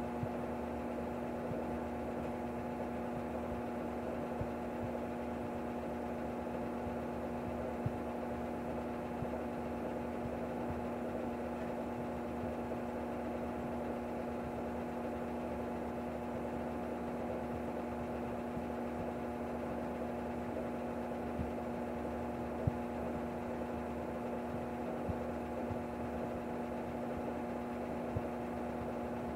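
Maytag Centennial top-load washing machine running steadily with the lid locked, most likely in its spin: an even motor and drum hum at one unchanging pitch, with a few faint knocks scattered through it.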